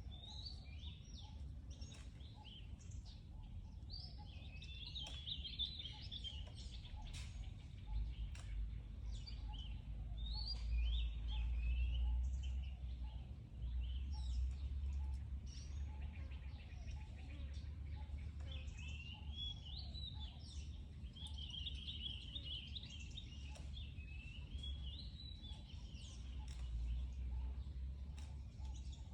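Birds chirping and warbling in runs of quick, high calls, over a low steady rumble of outdoor background noise.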